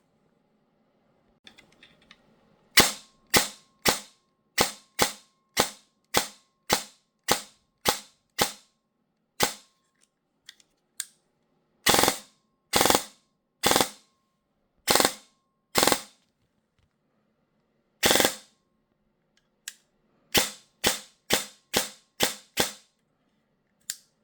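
E&C M4 airsoft electric gun firing short, sharp individual shots: about a dozen at a steady pace of roughly two a second, then scattered shots, then a quicker string of six near the end.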